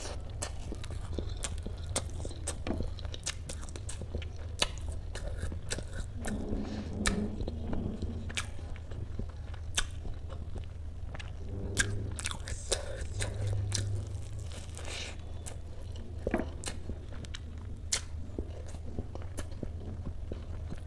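Close-miked mouth sounds of a person biting and chewing a mouthful of dhokla: many short wet clicks and smacks, irregularly spaced.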